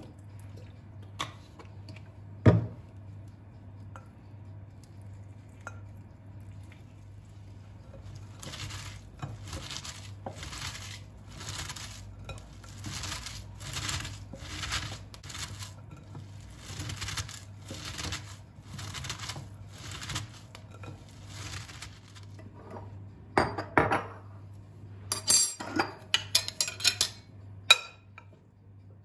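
Kitchen handling sounds: a sharp knock, then a long run of even scraping strokes about two a second, then clinking and clattering of dishes and cutlery near the end, over a steady low hum.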